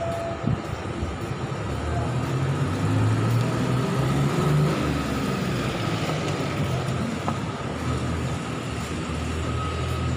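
A motor vehicle's engine running nearby, a low steady hum that grows louder about two seconds in, over outdoor traffic noise.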